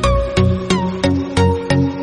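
Background music: an electronic track with a steady beat of about three notes a second, some notes sliding down in pitch.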